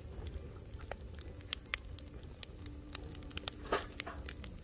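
Split firewood burning in a perforated stainless-steel fire pit, crackling with scattered sharp pops and a low rumble of flame; one louder crackle comes about three-quarters of the way through.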